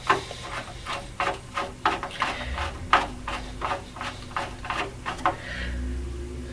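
Screwdriver driving a motherboard screw into a Dell PowerEdge SC1430 server chassis: a run of sharp clicks, about three a second, that stops about five seconds in.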